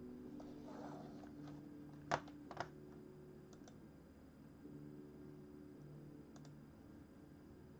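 Quiet room with a low steady hum, broken about two seconds in by two sharp clicks half a second apart, followed by a few fainter clicks.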